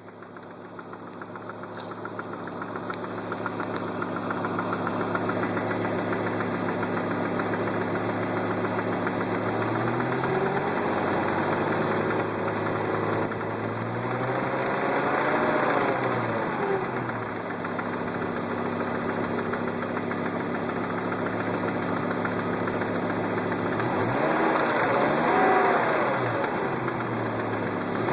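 Volvo S70 T5's turbocharged inline five-cylinder engine idling and revved up and back down several times, with a knock that the owner suspects is rod knock.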